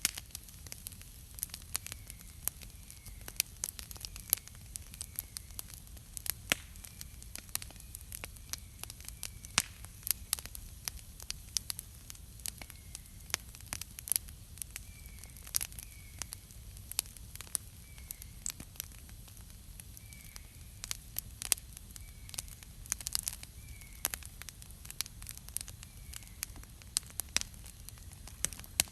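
Wood campfire crackling, with frequent irregular sharp pops and snaps over a low steady rumble. A faint short chirp repeats every second or two in the background.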